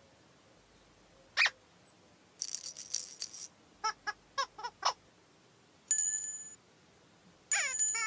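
Sparse children's-cartoon sound effects between stretches of near silence. A short chirp comes about 1.5 s in, then a high rattly shimmer, then a run of five or six quick squeaks. Two bell-like tinkles follow, one about 6 s in and one near the end.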